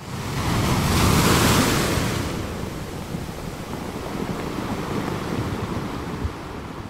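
Sea surf: waves breaking and washing, loudest about a second in, then easing off and slowly fading.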